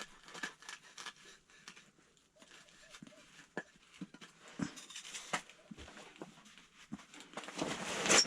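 Faint, scattered clicks and taps of hands working with fishing tackle and bait, with a louder rustle near the end.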